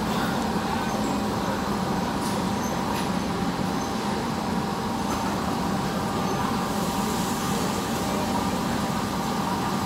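Steady mechanical drone: a low hum under a constant rushing noise, with faint steady whines above it, typical of ventilation fans in a large hall. A couple of faint clicks come about two and three seconds in.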